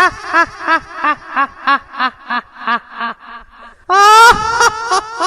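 Funny ghost voice cackling: a pitched laugh in quick pulses about three a second that fade away, then a loud new burst of laughter about four seconds in.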